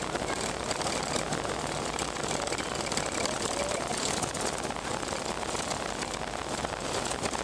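Cabin noise inside a BAe Avro RJ85 rolling out on the runway after landing: a steady rush of its four turbofan engines, airflow and wheels on the tarmac.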